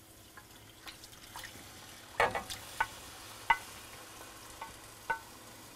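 Raw shrimp and beer marinade pushed with a wooden spoon from a baking dish into a hot sauté pan of leeks. There is a soft sizzle, with a few knocks and scrapes of the spoon on the dish, the loudest about two seconds in.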